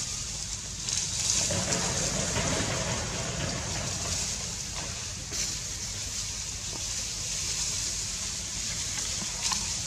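Steady outdoor background noise: an even hiss with a low rumble underneath and no clear calls, with a faint click near the end.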